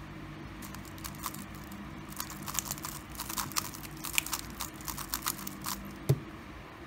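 X-Man Tornado v2 speedcube being turned fast, its plastic layers clicking and clacking in quick irregular runs, with one louder knock about six seconds in.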